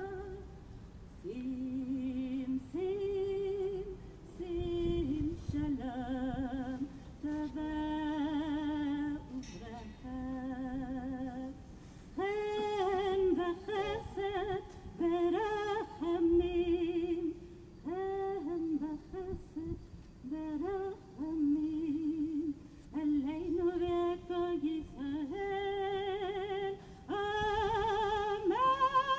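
A woman singing solo and unaccompanied, in long held notes with vibrato and short breaths between phrases.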